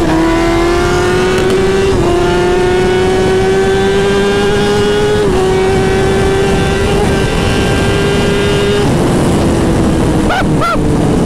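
Kawasaki Ninja ZX-10R inline-four engine at full throttle, accelerating hard through the gears. Its pitch climbs steadily in each gear and drops briefly at upshifts about 2, 5 and 9 seconds in. After the last shift the revs level off and sag slightly, with wind rushing past.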